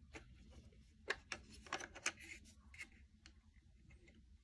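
Plastic battery cover on the back of an Amazon Echo Wall Clock being unclipped and taken off: a run of small sharp plastic clicks and scrapes, most of them between about one and two seconds in.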